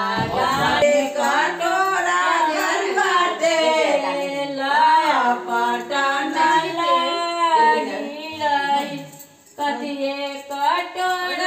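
Women's voices singing together without instruments, with a short break near the end before the singing resumes.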